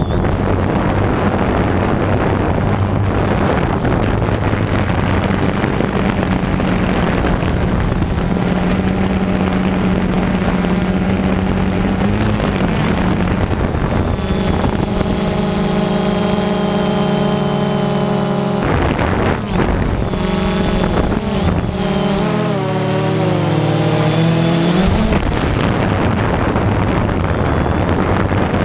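Multirotor drone's motors and propellers humming under wind rushing over the microphone. From about halfway the motor pitch wavers up and down as the motors change speed.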